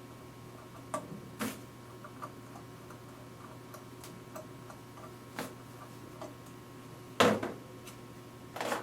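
Small metallic clicks and taps from a screwdriver and the receiver screws of a Pietta PPS-50 rifle being worked loose, scattered and irregular, with a louder clack of metal parts about seven seconds in and another just before the end.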